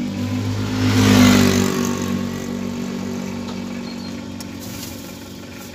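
A small vehicle's engine heard from inside the cabin, swelling as it revs about a second in, then settling back to a steady run that grows a little quieter near the end.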